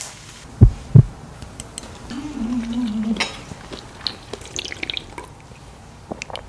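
Two heavy thumps about half a second apart, then a hummed 'mmm' lasting about a second, with scattered light clicks and clinks of tableware.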